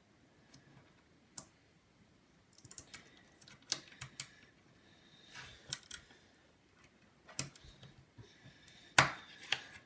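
Small scattered clicks and taps as a replacement rear camera module is handled and pressed into place in an iPhone 7, with the loudest click near the end.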